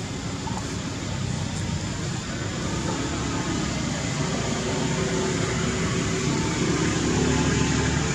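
Steady outdoor background noise, slowly getting louder, with no distinct events.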